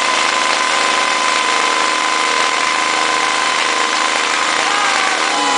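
Single-cylinder 250 cc Honda motorcycle engine running at a steady speed on a dynamometer, loud and even with no revving up or down.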